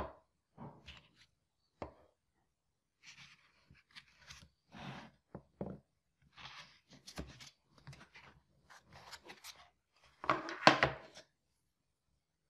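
Hands handling screwdriver bits: plastic bit strips lifted out of a foam case and set down on a wooden table, giving short, irregular knocks, clicks and rubbing. A louder cluster of metal clicks comes a little after ten seconds in, as the magnetic bit holder is taken up and a bit is fitted into it.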